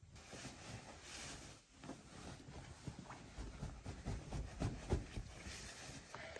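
Bedding being handled: fabric rustling close to the microphone, with scattered soft knocks and a few louder thuds about two-thirds of the way in.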